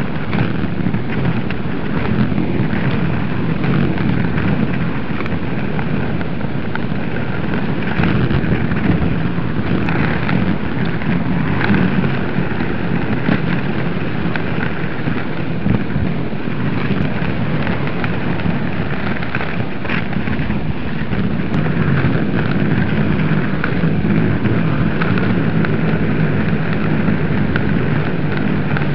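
Inline skate wheels rolling over a rough tarmac path: a steady, loud rolling noise with no let-up.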